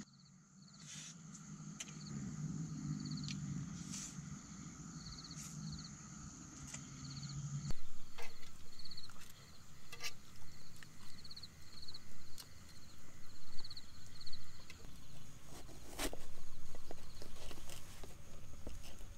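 Insects chirping in short trills repeated about twice a second, with scattered sharp clicks of a spoon and plate being handled during eating.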